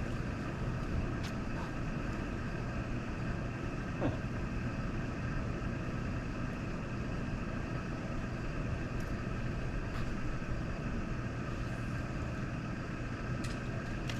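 Steady engine drone with a constant low hum and a few faint ticks.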